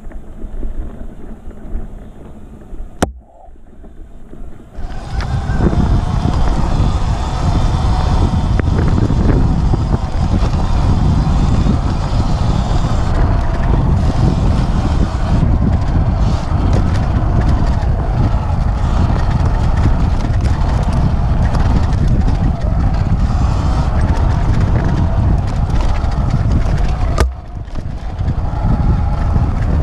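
Wind buffeting the microphone of a helmet camera with the running and trail noise of a Sur Ron X electric dirt bike riding dirt singletrack. It is quieter at first, with a sharp break about three seconds in, then loud and steady from about five seconds in, with a brief dip near the end.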